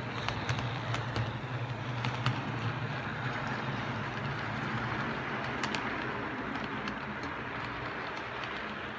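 Model train rolling past on its track: the locomotives' motors hum as they go by, then the freight cars' wheels run on with a steady rolling noise and scattered light clicks over rail joints and turnouts.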